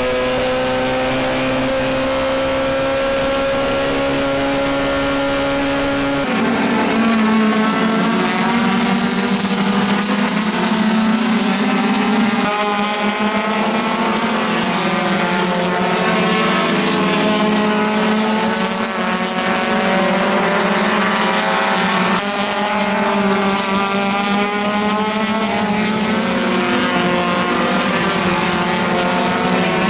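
A racing car's engine heard from inside the cabin, held at high revs with its pitch creeping slowly upward. About six seconds in, a pack of race cars' engines takes over: several engines rising and falling in pitch as they accelerate and shift through a corner.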